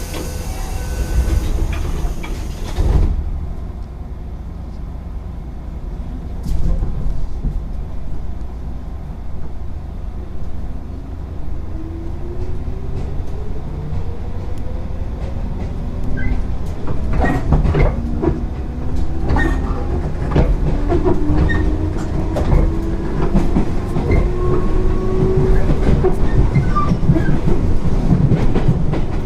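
JR 205 series 0-番台 electric train with field-added excitation control, heard on board. Its traction motors whine, rising slowly in pitch as the train gathers speed, with wheels clicking over rail joints. A hiss of air comes near the start.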